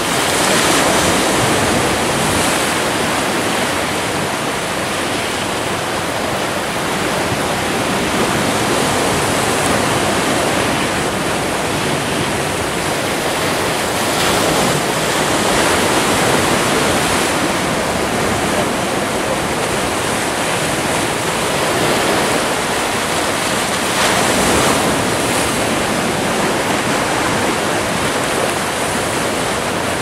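Sea waves breaking and washing among rocks on a rocky shore: a steady surf hiss that swells a little as each wave breaks.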